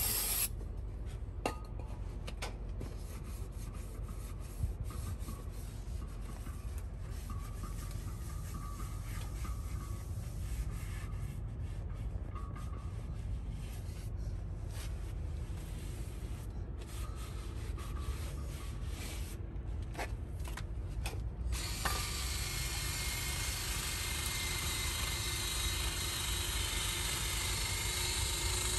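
Shop towel rubbing and wiping around the inside of a semi-truck wheel hub's bearing bore, with a few light metallic clicks over a low background rumble. About three-quarters of the way through a steady hiss comes in.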